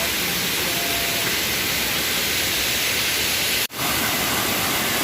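Waterfall rushing steadily as a loud, even roar of falling water, with a brief drop-out a little over three and a half seconds in.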